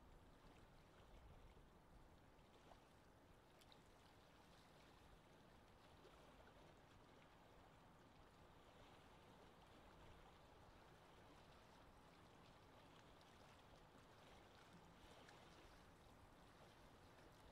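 Faint, steady ambient wash of water with gentle wind, even throughout and without distinct events.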